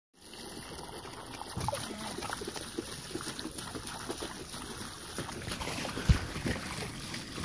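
Steady outdoor hiss with scattered light crackles and knocks, like footsteps and movement on dry grass, with a sharper thump about six seconds in.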